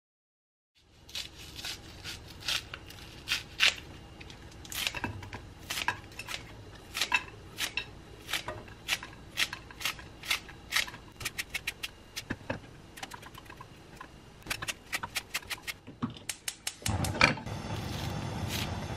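Kitchen scissors snipping through green onion stalks, a crisp snip every second or so with quicker runs of snips later on. A steady hiss comes in near the end.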